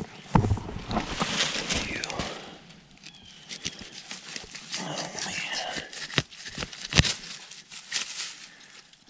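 Dry pine straw and twigs rustling and crackling as a hand searches the ground, with sharp knocks about half a second and seven seconds in. Brief wavering voice-like sounds come around a second and a half and five seconds in.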